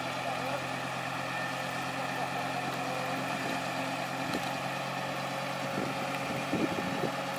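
Heavy diesel engine running steadily at low revs, with a few soft knocks in the second half.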